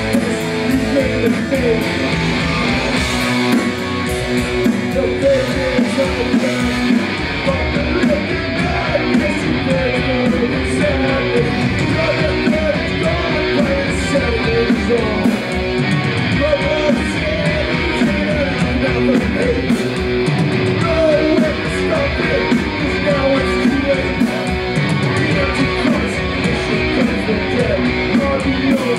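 Live punk rock band playing loud, with distorted electric guitars, bass and fast drums. No lead vocal comes through.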